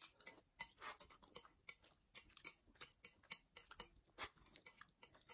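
Faint, irregular clicks and taps of metal chopsticks picking at food on plates, a few per second.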